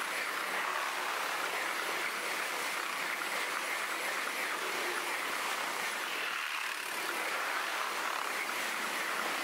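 Freight train of autorack cars rolling past: a steady rushing noise of steel wheels on the rails, with no breaks or changes.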